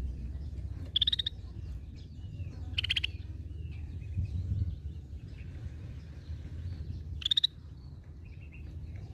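Scaly-breasted bulbul (cucak bersisik) giving three short, rapidly pulsed, rasping calls, about one, three and seven seconds in. Softer chirps come between them over a steady low hum.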